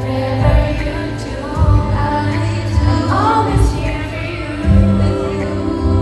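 A woman singing a slow song live into a handheld microphone over instrumental accompaniment, with sustained bass notes, played through an arena's loudspeakers.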